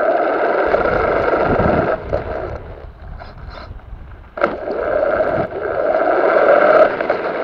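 RC car driving over gravel, its motor and gears whining over the sound of the tyres on the stones. It eases off about two seconds in and speeds up again a little past the four-second mark.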